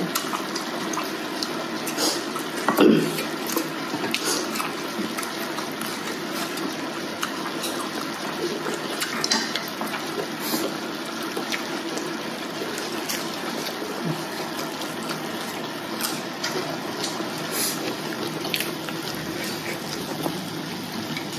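Broth simmering steadily in an electric hotpot, with scattered clicks of chopsticks against the pot and a louder knock about three seconds in.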